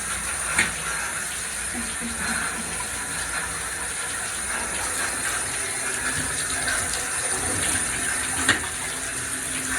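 Tap water running steadily into a bathtub, with two sharp knocks, one just after the start and one near the end.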